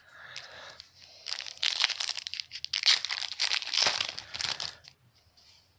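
A trading card pack wrapper being torn open and crumpled, a dense crackling that lasts about three seconds and fades out near the end.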